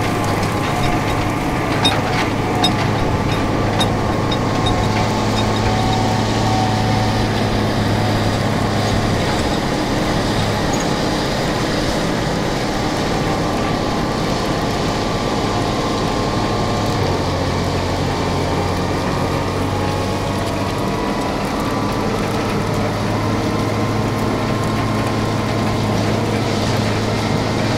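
John Deere 8770 four-wheel-drive tractor's diesel engine running steadily under load while pulling an anhydrous ammonia applicator toolbar through the field, with a few light clicks in the first couple of seconds.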